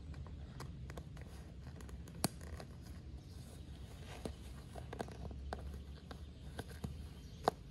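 Backpack straps and buckles being handled as a rolled bundle is strapped onto the pack: rustling webbing and fabric with scattered clicks, two sharp ones about two seconds in and near the end.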